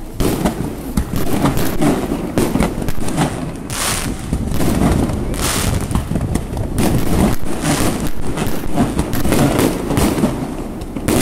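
Fireworks display going off: a dense, unbroken run of bangs and crackling bursts, with a few louder bangs standing out.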